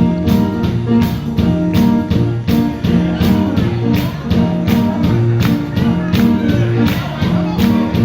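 Band music: a steady drum beat, a little over two strokes a second, over a sustained bass line.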